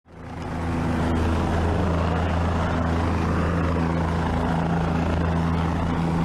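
Rescue helicopter hovering for a hoist pickup: a steady, loud rotor and engine drone under a broad rushing noise, fading in over the first moment.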